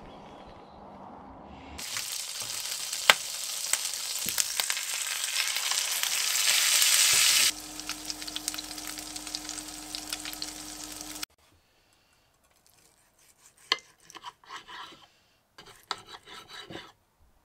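Steak sizzling and crackling in a frying pan, starting suddenly about two seconds in and growing louder, then dropping to a softer sizzle over a steady hum. Near the end, a knife and fork click and scrape on a plate as the cooked steak is cut.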